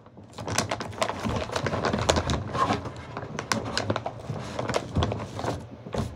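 Close handling noise: irregular rustling and crinkling with many small clicks and crackles, easing off near the end.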